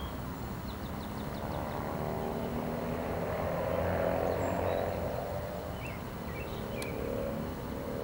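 Road traffic going by, a vehicle swelling to a peak about halfway and fading, with a few faint high bird chirps.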